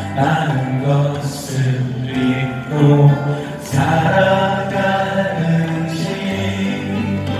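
Live acoustic band music from two acoustic guitars, a keyboard and a hand drum, under a melody of long held notes that change about once a second. A new phrase comes in strongly about halfway through.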